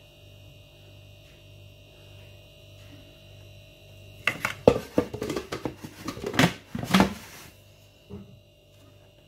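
Steady low electrical hum. About four seconds in, a loud cluster of clicks and knocks lasts roughly three seconds, and one more knock comes near the end.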